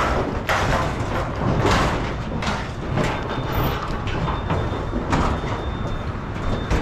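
Steel livestock trailer rattling and clanking as cattle shift and are loaded into its compartments: metal panels and gates knocking, with scuffles and knocks throughout.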